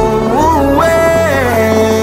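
Background song: a sung vocal line glides up and then back down over a steady bass.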